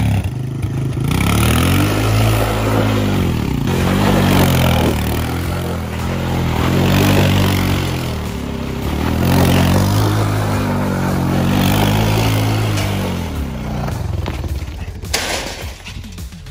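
Honda FourTrax ATV's single-cylinder engine revving up and dropping back again and again as the quad is spun in circles on gravel. Near the end there is a short sudden clatter and the engine falls to a lower level.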